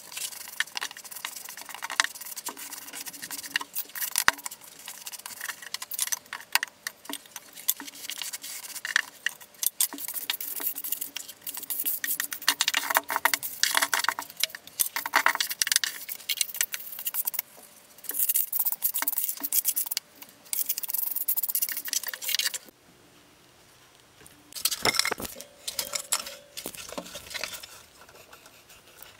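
A steel trowel scraping and smoothing wet sand-cement deck mud into a sloped shower pre-slope. It comes as dense, rapid scratching with clicks and a short lull about two-thirds through.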